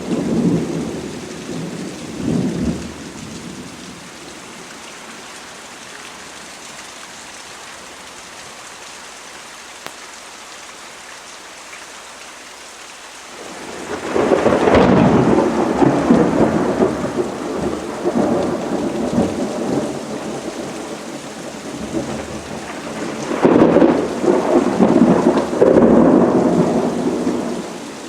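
Steady rain, with rolling thunder: a rumble fading in the first few seconds, a long loud peal starting about halfway through, and another heavy rumble near the end.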